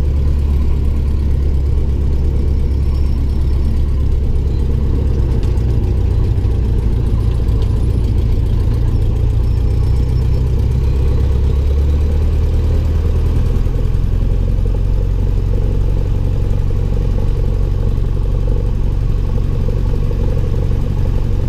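Single-engine light aircraft's piston engine and propeller running at low taxi power, heard from inside the cockpit. The engine note is steady, shifting slightly about twelve seconds in as the power changes.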